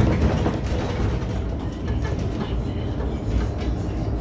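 Cabin noise of an electric city bus driving along a street: a steady low road rumble with scattered light clicks and rattles.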